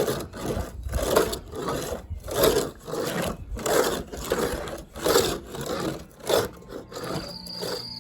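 Wood being worked by hand in steady back-and-forth scraping strokes, about one full stroke a second, like a hand saw or sanding block. Music with a steady high tone comes in near the end.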